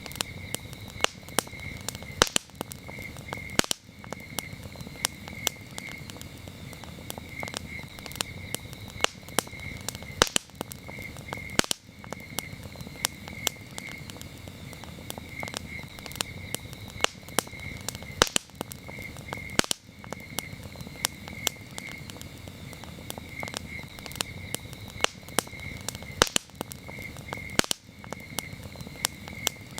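Campfire burning with irregular sharp crackles and pops over a steady low rustle, while a cricket chirps in a steady repeating pulse throughout.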